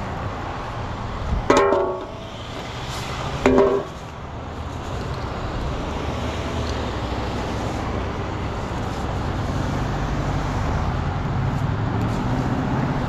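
Background music with a few plucked guitar chords, over a steady low rumble.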